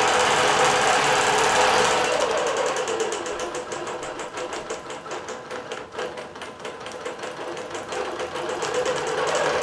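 Bernina Q24 longarm quilting machine stitching a computer-guided border design, a fast, steady needle clatter. It runs softer for several seconds in the middle and picks up again near the end.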